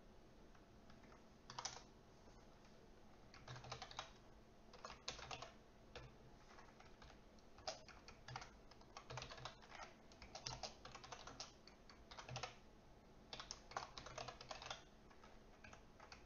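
Faint typing on a computer keyboard, in short runs of keystrokes with pauses between them.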